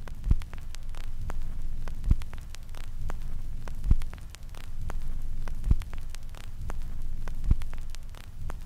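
Intro soundtrack effect: a low rumbling drone with a deep thud about every two seconds, under a steady crackle of clicks like an old film reel.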